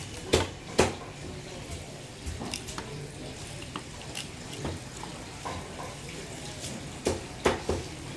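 Knife knocking on a wooden chopping block as a baam eel is cut up. There are two sharp knocks near the start, lighter taps and scrapes through the middle, and a quick run of four knocks near the end, over a steady background hiss.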